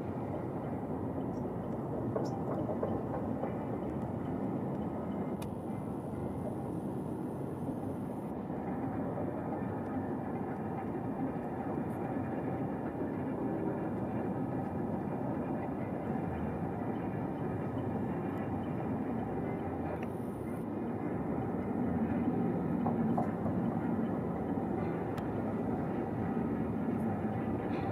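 Distant roar of a Boeing 737's twin jet engines during the climb after takeoff: a steady low rumble that grows a little louder near the end.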